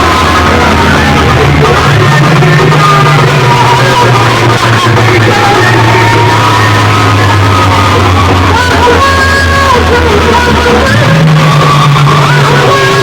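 Music with a heavy, steady bass line and a gliding melody over it, played very loud through large sound-box speaker systems in a sound-box competition.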